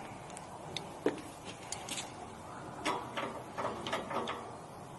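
Scattered light clicks and taps of small metal steam-wand parts being handled while the threads are greased, with a sharper click about a second in.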